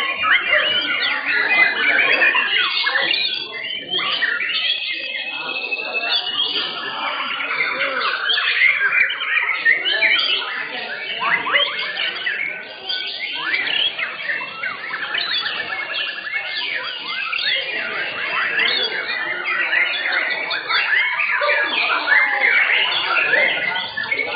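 Many white-rumped shamas singing at once, a dense, continuous tangle of rapid whistles, chirps and trills from several birds overlapping.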